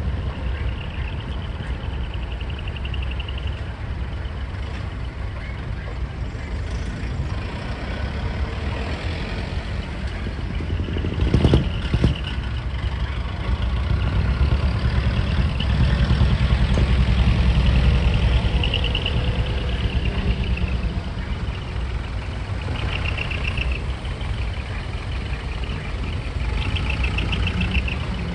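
Diesel truck engines idling and pulling slowly away, a steady low rumble that grows louder about two thirds of the way through. Two short sharp bursts sound close together about halfway in.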